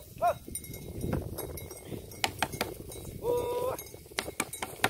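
Sheep bleating: a short call just after the start and a longer, steady call about three seconds in, among scattered clicks and knocks.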